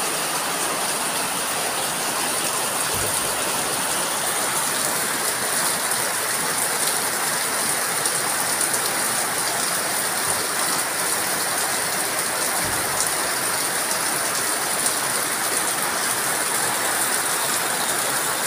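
Heavy rain falling steadily onto a tiled courtyard, roofs and broad leaves: an even, unbroken downpour.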